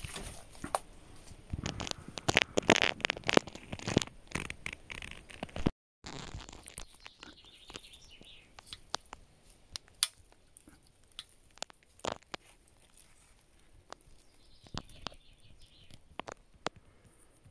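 Footsteps through dry undergrowth, with twigs and dead leaves crackling and snapping, for the first few seconds. After a short break come scattered light clicks and knocks as an old rusted metal pipe fitting is handled.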